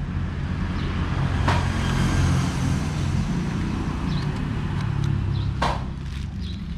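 Steady low rumble of road traffic, with a sharp plastic click about a second and a half in and a louder one about a second before the end as the side plate of a Shimano Caius baitcasting reel is unlatched and pulled off.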